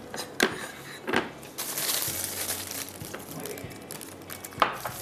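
Kitchen handling noise: a plastic piping bag crinkling while it is filled with butterscotch sauce, with three sharp knocks or clinks of utensils or glassware, the loudest near the end.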